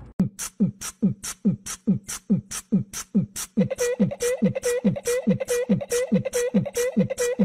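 A fast, even beat of thumping kick-drum hits, about three a second, alternating with short hissing hi-hat hits. About halfway through, a repeating mid-pitched tone joins on the beat.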